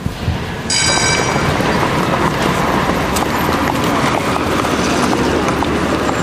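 A few footsteps on a hard indoor floor, then about a second in a switch to loud busy street noise: traffic and crowd hubbub with footsteps on pavement. A short high tone sounds at the change.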